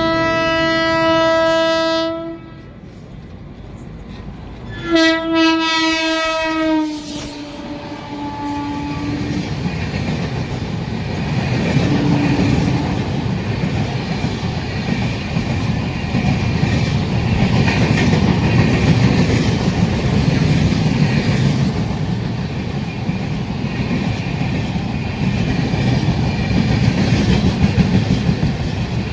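A train horn sounds twice: a steady blast of about two seconds, then a second blast about five seconds in that drops slightly in pitch as it fades. Then a passing train's wheels and cars run past on the track, building and continuing to the end.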